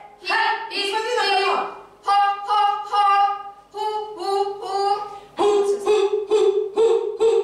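A girl's voice singing short, detached staccato notes on breathy 'h' syllables (ho, he, hi) in quick groups. It is a breath-support exercise: each note is cut off by the diaphragm and split with air rather than pushed from the throat.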